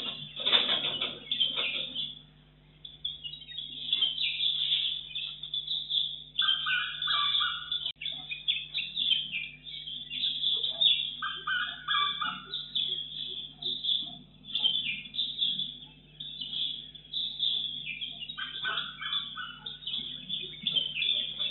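Birds chirping and calling steadily, with a short, lower call repeated three times, several seconds apart.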